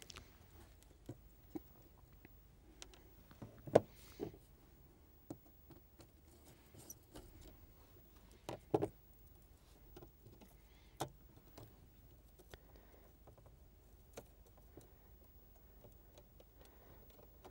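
Scattered small clicks and taps of a metal heatsink being worked loose and handled on a ZX Spectrum circuit board. A sharper knock comes about four seconds in, and a double knock about halfway through.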